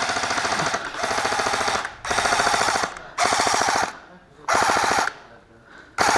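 Airsoft electric rifle (AEG) firing short full-auto bursts, about six of them, each under a second long, with brief pauses between, the BBs cycling in a rapid, even rattle.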